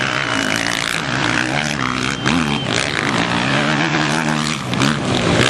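Motocross motorcycle engines revving on the track, their pitch rising and falling over and over as the riders work the throttle through the jumps.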